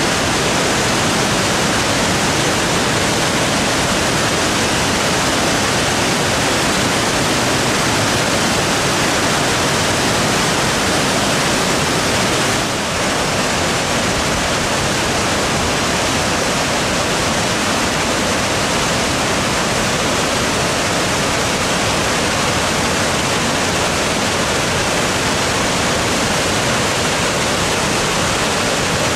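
Creek water rushing down a waterfall cascade, a steady loud rush of noise that dips slightly for a moment about thirteen seconds in.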